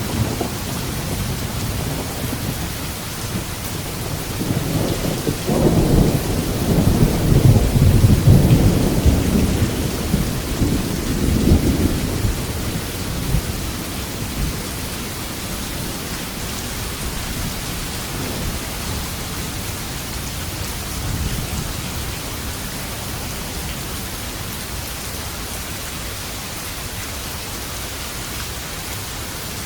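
Steady rain with a long roll of thunder: a low rumble builds about five seconds in, peaks, and rolls away within about eight seconds, with a fainter rumble later on.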